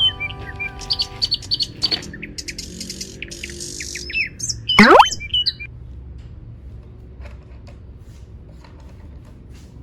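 Birds chirping and tweeting in quick short calls as a music track fades out, with one loud, fast rising sweep just before the chirps stop; then only faint scattered clicks.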